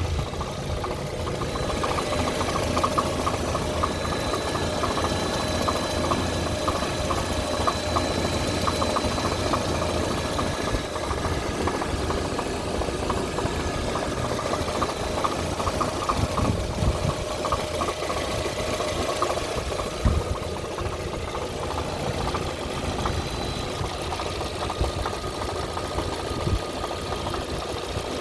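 Lada Granta engine running with a knock that the owner is recording: a fast run of ticks over the steady engine sound, with one sharper knock about twenty seconds in.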